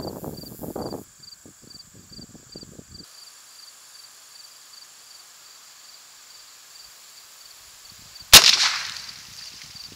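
A single .22 Long Rifle rifle shot about eight seconds in: a sharp crack whose tail dies away over about a second. Crickets chirp steadily and faintly throughout.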